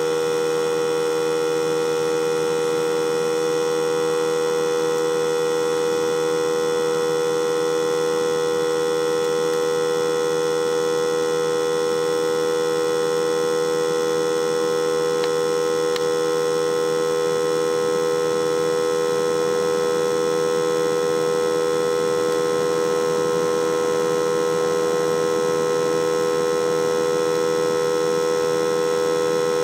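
Air compressor running steadily, a constant hum made of several steady tones, blowing air through a hose into a wood fire forge.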